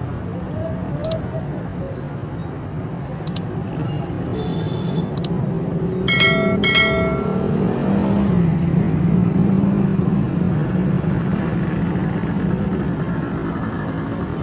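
Busy street traffic at a town junction: motorcycle and auto-rickshaw engines running and passing close by, with two short horn beeps about six seconds in.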